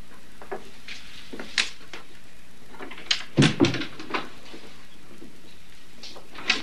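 A wooden panelled door being shut, with a thud and latch click about three and a half seconds in, among several lighter clicks and knocks.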